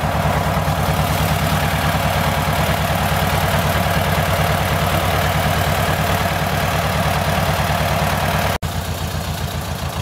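Tractor engine idling steadily with a regular low throb. The sound drops out for an instant about eight and a half seconds in.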